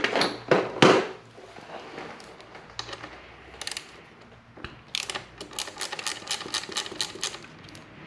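Small socket ratchet clicking in a quick even run of about six clicks a second through the second half, after a few sharp knocks in the first second.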